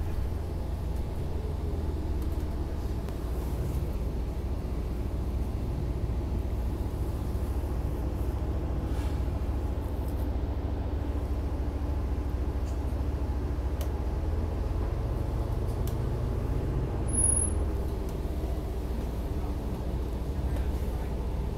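Steady low rumble of a SEPTA Market-Frankford Line train car, heard from inside the car as it rolls slowly along the tracks.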